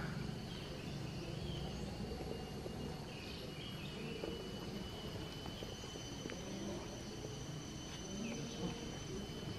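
A steady, high-pitched insect trill sets in about three seconds in and holds, with a fainter higher tone joining later, over quiet outdoor background noise.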